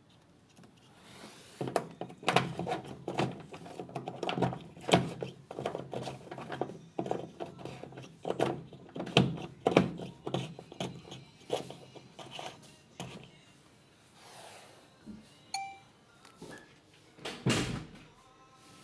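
Rapid, irregular knocking and clattering of hard objects being handled, thinning out after a while, with one louder thunk near the end.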